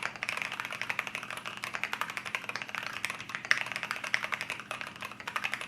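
Typing test on an AR87 mechanical keyboard fitted with AKKO OSA-profile keycaps: a rapid, continuous run of keystrokes with a heavy, solid tone.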